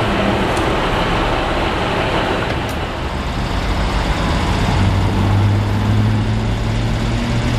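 Diesel engine of a VIA Rail Dayliner (Budd rail diesel car) running at a standstill, a steady low drone that grows louder about halfway through.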